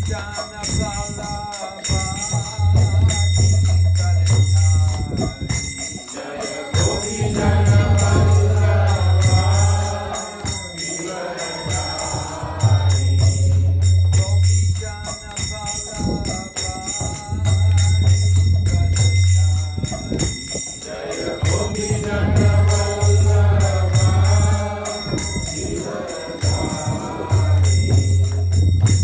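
Devotional music: voices singing a melody over a constant fast jingling of small hand cymbals, with a deep steady low tone that comes and goes every few seconds.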